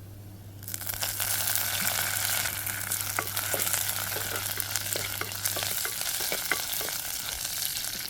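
Hot oil sizzling in a pan as chopped ginger, garlic, cinnamon, cardamom, rampe (pandan) leaves and curry leaves fry in it. The sizzle sets in about a second in, with frequent short clicks from the spoon as the spices are stirred.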